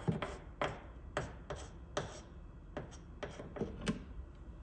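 Brush applicator daubing Duralac anti-corrosion jointing compound around a bolt hole on the metal suspension mounting: light irregular taps and rubbing, about ten in all, stopping about four seconds in.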